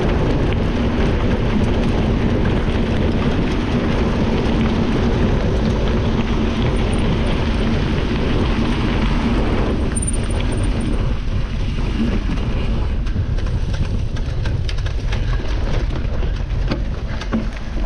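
Wind rushing over the microphone of a camera mounted on a cyclocross bike, with the rush of its tyres over gravel. About ten seconds in the rush eases and sharp knocks and rattles of the bike over bumpy grass come through.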